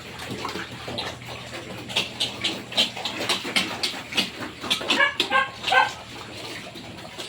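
Pigs feeding in a pen: a run of clicking and chomping noises, with a few short, high whining calls a little after five seconds in.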